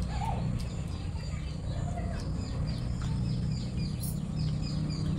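A bird chirping in the background, a quick run of short, falling chirps several times a second, over a steady low hum.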